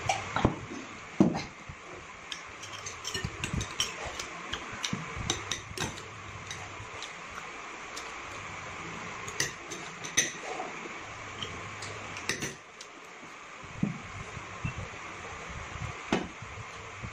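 Metal forks clinking and scraping on ceramic plates and a steel bowl during a meal, in many short irregular clicks, with a louder knock about a second in as a glass is set down on the table. A steady hiss runs underneath.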